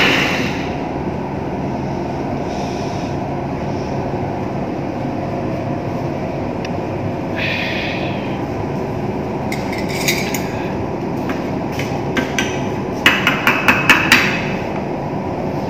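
A spoon scraping and tapping pesto off the steel lid of a mixer-grinder jar: a few sharp metallic taps about ten seconds in, then a quick run of them near the end, over a steady background hum.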